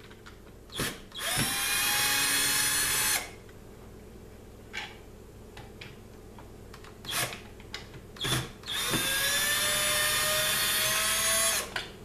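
Cordless drill-driver backing out the mounting screws of a wall button, in two runs of two to three seconds. Each run has a motor whine that rises in pitch and then holds steady, with a few short clicks and knocks from handling between the runs.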